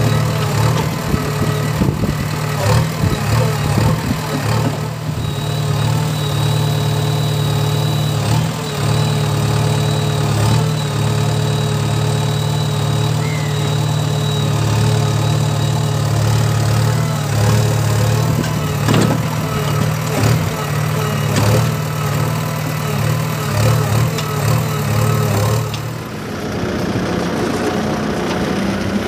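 Diesel engine of a JCB 3DX backhoe loader running steadily while its bucket scoops and dumps cow dung into a tractor trolley, with scattered knocks. The engine sound falls away near the end.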